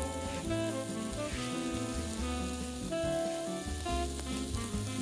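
Chicken sizzling on a hot grill grate, with bossa nova background music playing over it.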